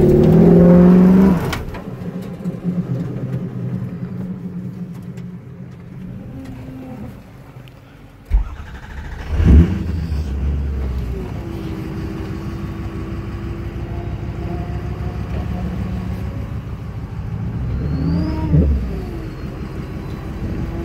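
Truck engine revving hard, then easing off after a second or two to a lower steady run. There are a couple of sharp knocks about eight and nine and a half seconds in, and another rise and fall in revs near the end.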